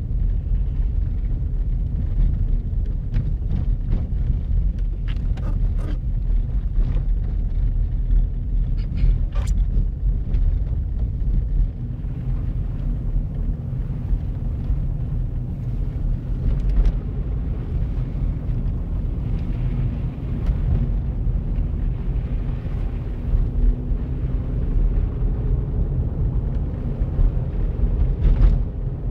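Steady low engine and road rumble of a car being driven, heard from inside the cabin, with a few light clicks and knocks between about three and ten seconds in and again near the end.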